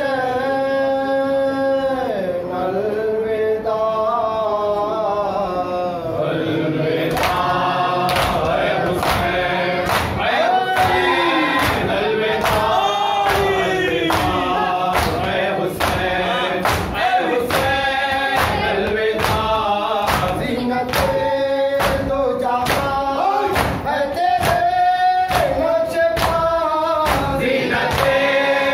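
A male reciter singing a noha (mourning lament) into a microphone, with a group of men chanting along, joined from about seven seconds in by rhythmic matam: open hands striking chests about twice a second.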